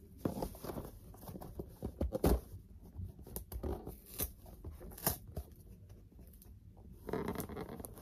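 Hands working at a cardboard toy box to get it open: scattered scratches, taps and small knocks of the packaging being handled, with a louder stretch of rubbing near the end.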